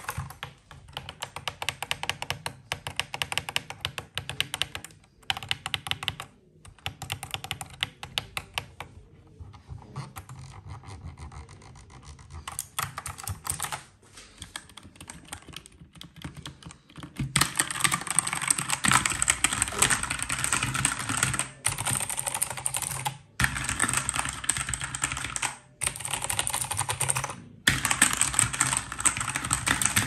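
Fast typing on mechanical gaming keyboards with blue and red switches, an Acer Predator Aethon 500 and an HP Pavilion Gaming Keyboard 800. Dense runs of key clicks are broken by brief pauses; the clicking is softer through the middle and louder in the last third.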